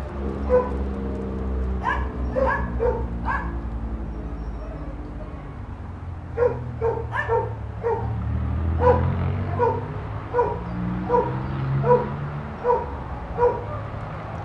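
A dog barking in short, repeated barks: a quick cluster near the start, then a steady run of about one bark every three-quarters of a second through the second half, over a low steady hum.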